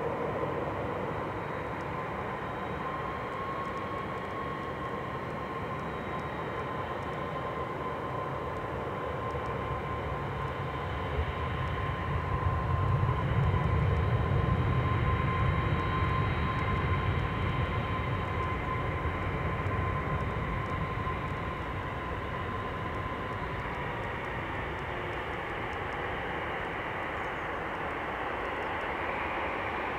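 Airbus A340-300 on final approach, its four CFM56 turbofans heard from afar as a steady jet rumble. A thin high fan whine holds one pitch and fades out late on, and the rumble grows louder around the middle before easing again.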